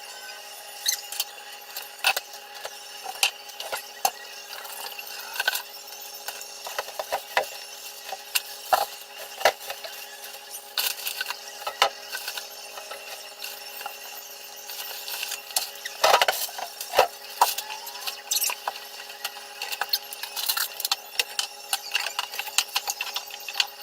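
Fast-forwarded sound of a refrigerator being cleaned out: a quick stream of clinks and clatter from glass, dishes and shelves being handled, with scattered squeaks, over a few steady tones.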